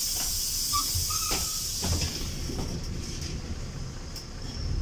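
Inside a LiAZ 5292 city bus moving slowly: a low engine rumble under a high hiss that is strong for the first two seconds and then fades, with a few short knocks.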